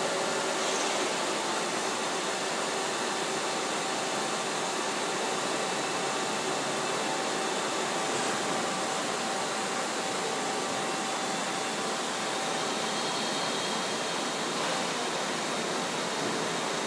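Steady industrial drone of a row of running factory machines: an even, dense noise with faint steady hum tones in it and no distinct knocks or strokes.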